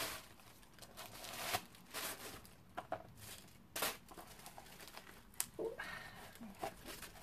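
Quiet rustling and crinkling with scattered small clicks and taps as hands handle a new shoe and its paper packing.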